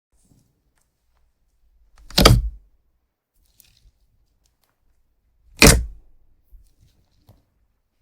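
Slime being pressed and squished by hand close to the microphone: two loud squishes about three and a half seconds apart, with a few faint ticks between them.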